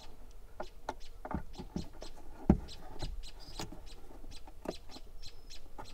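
Small irregular plastic clicks and taps of hands fitting a truck instrument cluster and pressing its wiring connector in, the connector's locking lever swinging round as it seats, with one louder knock about two and a half seconds in.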